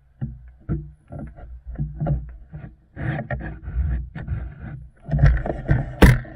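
Movement and handling noise from a person carrying an airsoft rifle: irregular bumps, knocks and rustling, busier in the second half, with one sharp crack about six seconds in.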